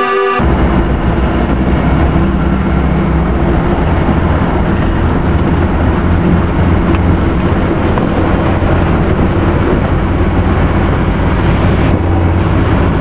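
Cab noise of a Land Rover Wolf XD on the move: its 300Tdi diesel engine droning steadily, with road and wind noise around it.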